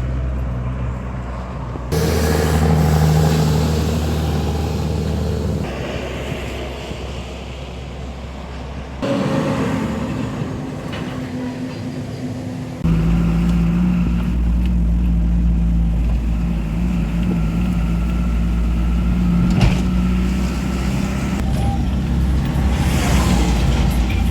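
Motor vehicle engine and road noise: a steady low engine drone under a hiss. It changes abruptly in level and pitch a few times, about 2, 9 and 13 seconds in.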